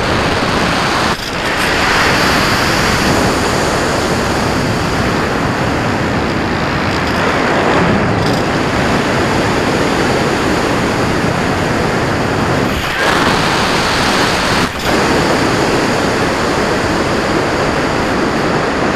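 Steady loud rush of wind over the onboard camera's microphone on a Cularis RC glider in flight, dipping briefly three times.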